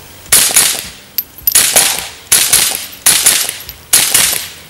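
Five suppressed shots from a Ruger Mark IV 22/45 Lite .22 LR semi-automatic pistol, fired roughly a second apart. Each shot starts suddenly and dies away over about half a second.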